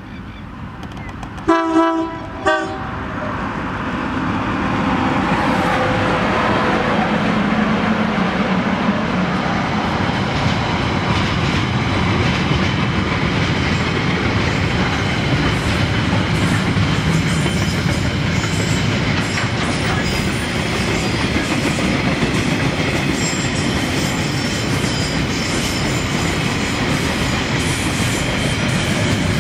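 Freight train sounding two short horn blasts about two seconds in, then passing close by. A falling tone comes as the locomotive goes past, followed by the steady rumble and wheel clatter of container wagons rolling by.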